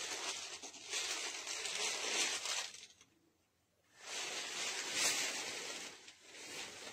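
Rustling of a silk Banarasi saree being unfolded and handled. The rustle cuts out completely for about a second near the middle, then resumes.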